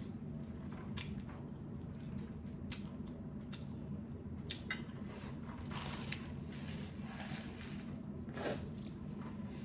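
Close-up mouth sounds of eating spicy instant noodles: slurping and wet chewing in short strokes, with a sniff near the end, over a steady low hum.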